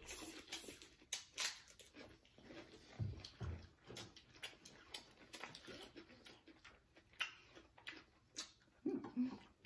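Close-up eating sounds: rice noodles being slurped and chewed, with many short, scattered mouth clicks and smacks.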